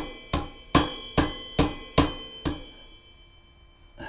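An axle end cap being banged onto an e-bike's axle with seven quick sharp strikes, about two or three a second. Each strike leaves a short ring. The strikes stop about two and a half seconds in.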